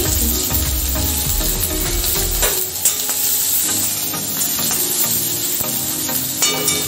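Chopped garlic, ginger and green chillies sizzling in hot oil in a metal wok as they are lightly sautéed, with a couple of sharp clicks about two and a half seconds in.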